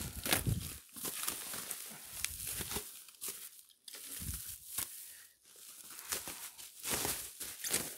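Packaging material being handled and crumpled by hand: irregular crinkling and rustling with sharp crackles and some tearing.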